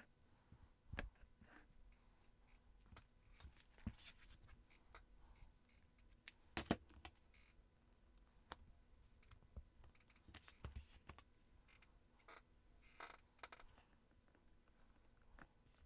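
Mostly near silence, broken by faint scattered taps and short paper rustles from a paper junk journal and loose paper scraps being handled on a cutting mat. The loudest is a quick double click about six and a half seconds in.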